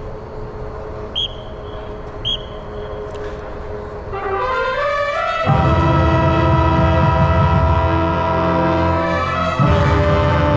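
Marching band with brass and woodwinds playing: a rising run of notes about four seconds in, then loud held chords with strong low notes from about five and a half seconds. There is a brief break near the end before the next chord. Before the band starts there is a steady crowd hum with two short high chirps.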